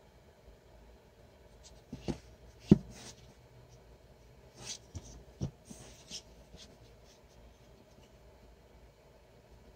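Handling noise from a wooden maple block being turned over in the hand against a mat. There are light rubbing and scraping sounds and a few soft knocks in two clusters, with the sharpest knock a little under three seconds in.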